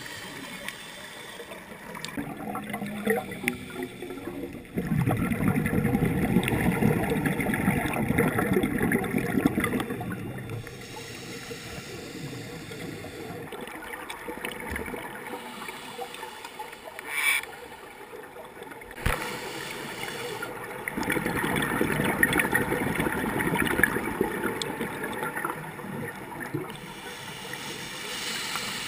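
Scuba regulator exhaust heard underwater through a GoPro housing: a diver's exhaled air bubbles out in two long rushing, gurgling bursts of several seconds each, with quieter stretches between. There are a couple of sharp clicks around the middle.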